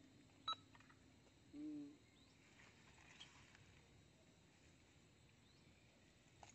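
Near silence outdoors, broken by one sharp click about half a second in and a single short, low-pitched tone just before two seconds in.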